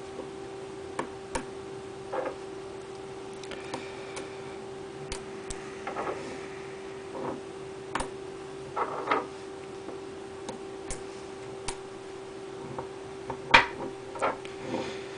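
Tiny neodymium magnet spheres clicking and clacking as magnet-ball figures are snapped together at their corners: scattered sharp clicks at irregular times, the loudest near the end, over a steady low hum.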